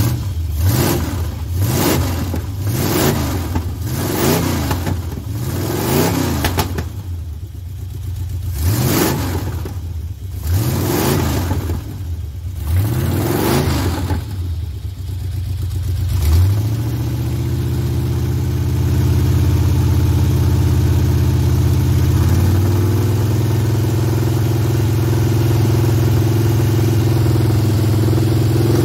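Dodge Ramcharger engine running on a newly installed Carter Thermoquad carburetor, its choke not hooked up. The throttle is blipped about a dozen times, the revs rising and falling each time. About 16 s in, it settles into a steady faster run that steps up slightly a few seconds later.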